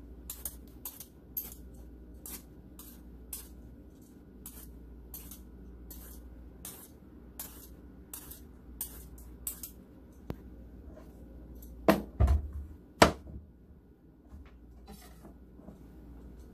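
Y-peeler shaving strips off a large zucchini, a quick scrape about twice a second, cutting the ribbons that stand in for pasta. About twelve seconds in come two or three sharp knocks on the cutting board, the loudest sounds, and after them a few more peeler strokes.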